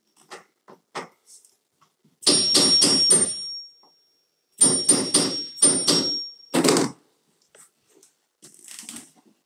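Claw hammer striking a steel nail set held on a finish nail in baseboard trim, setting the nail head below the surface. There are two runs of quick taps, four or five in each, with a metallic ring, and the second run ends in a heavier blow.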